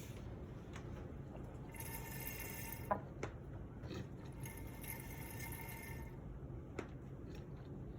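Supercharger oil being hand-pumped slowly from its bottle through a thin hose: two hissing squishes, each about a second or more long, with a few light clicks, as the thick oil is pushed through.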